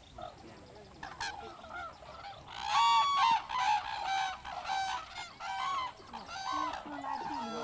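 Red-crowned cranes calling: a run of repeated honking calls from about a second in, roughly two a second, the loudest about three seconds in.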